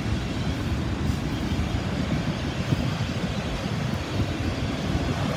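Freight train of autorack cars rolling past, a steady low rumble of wheels on the rails.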